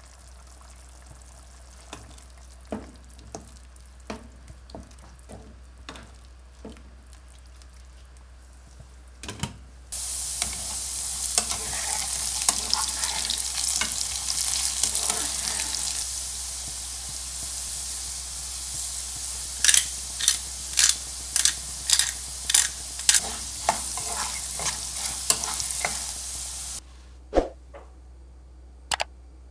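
Diced potatoes frying in hot oil in a pan: a loud steady sizzle that starts suddenly about ten seconds in and cuts off near the end. While they fry, a silicone spatula stirs them and knocks against the pan about twice a second. Before the sizzle there are only faint light taps, and after it a few single clicks.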